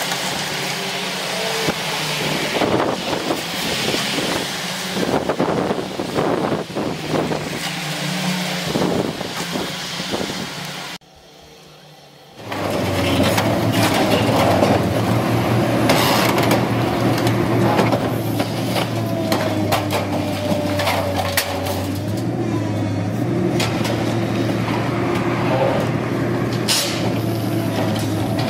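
A large demolition excavator's diesel engine running under load, with crashing and crunching knocks of building debris. The sound cuts out briefly near the middle, then the engine runs on steadily with occasional knocks.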